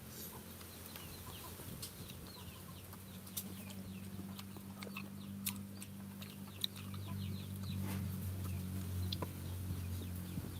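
Chickens clucking, with many short, high, falling chirps, over a steady low hum that grows louder in the second half. A few sharp clicks are scattered through it.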